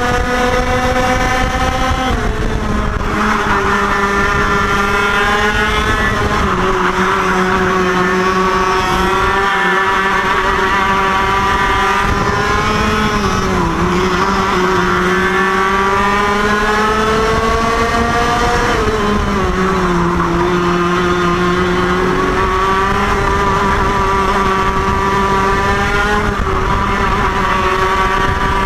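IAME KA100 100cc two-stroke kart engine at race speed. Its pitch drops into the corners about 2, 13 and 19 seconds in, then climbs steadily along each straight.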